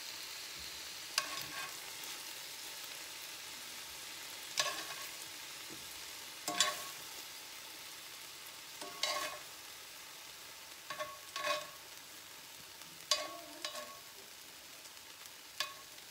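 Chicken fajita strips sizzling in oil in a cast-iron skillet, with metal tongs clinking sharply about nine times as the pieces are lifted out. The sizzle eases a little past the middle as the pan empties.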